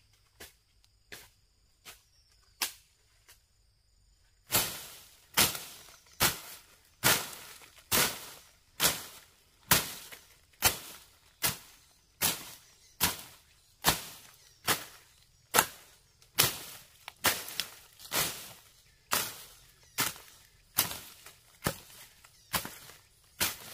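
A steady run of single sharp strikes, a little more than one a second. They are faint at first and much louder from about four and a half seconds in.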